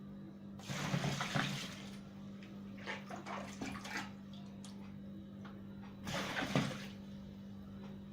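Clean water being poured into the wash tub of a small twin-tub washing machine to rinse out soap, in two splashing pours: one about a second in and another near the end.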